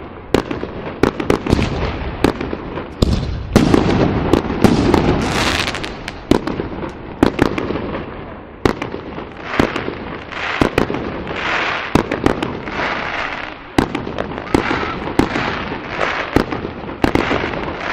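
Fireworks going off in a dense, continuous barrage: many sharp bangs a second over a steady crackle.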